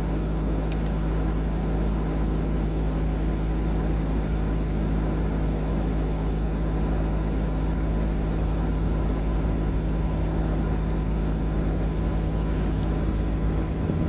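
A vehicle engine running steadily: a low rumble under a constant, unchanging hum.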